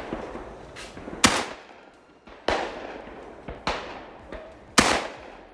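12-gauge shotgun shots at clay targets: four shots spaced a little over a second apart, each trailing off in a rolling echo. The first, about a second in, and the last, near the end, are loud; the two between them are fainter.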